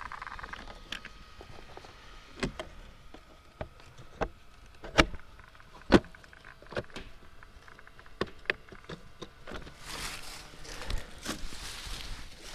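Handling of an RC monster truck being readied to run: scattered clicks and knocks, two sharp knocks about five and six seconds in, then a stretch of rustling near the end.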